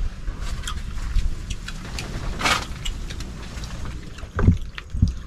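Wind rumbling on the microphone, with scattered light clicks of shells handled at the table, a brief rustle about halfway through and two dull thumps near the end.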